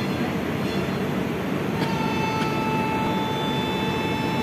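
Double-decker train coaches rolling past a platform, with a steady rumble of wheels on the rails. About halfway through, a steady high-pitched tone comes in and holds.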